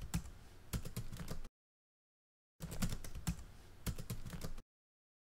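Computer keyboard typing sound effect: two quick runs of key clicks, each cut off into about a second of dead silence.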